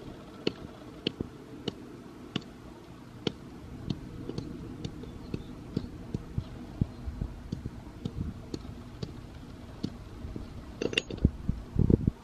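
A claw hammer striking a charcoal briquette on a concrete sidewalk, crushing it into crumbs: a run of sharp knocks, roughly one every half second to a second, coming more often as it breaks up, with a few louder strikes near the end.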